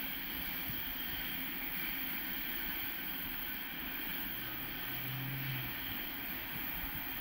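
Faint, steady rumble of a convoy of VL11 and VL10K electric locomotives running away along the track, under wind on the microphone.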